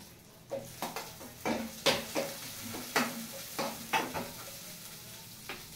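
Spatula stirring and scraping in a frying pan of onions, cinnamon, cloves and green chillies frying in oil: a string of sharp, irregular scrapes and taps over a soft sizzle.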